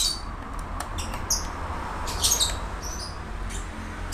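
Small sharp clicks of a screwdriver working on a laptop's hard-disk screws, with short high chirps scattered through and a steady low hum underneath.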